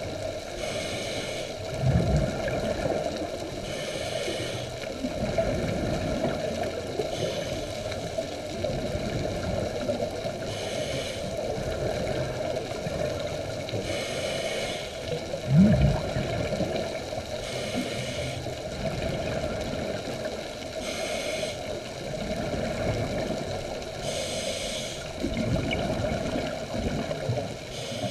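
Scuba diver breathing through a regulator underwater: a short hiss with each inhalation about every three and a half seconds, and gurgling bursts of exhaled bubbles, the loudest about halfway through, over a steady low hum.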